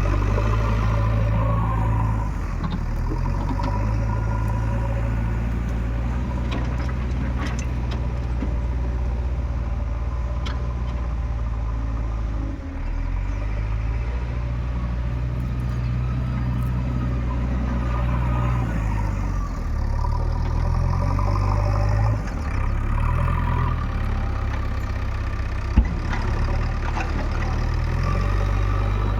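Diesel engine of a JCB 3DX backhoe loader running under work while it loads mud, its note dipping and rising several times as the load changes. A single sharp knock comes near the end.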